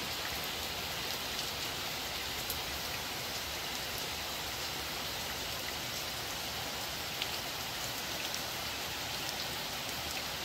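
Steady rain falling, with scattered sharper drop ticks now and then.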